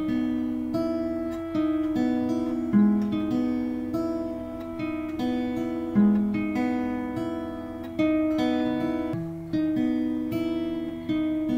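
Background music: an acoustic guitar playing a slow melody of single plucked notes, about one a second, each left to ring out.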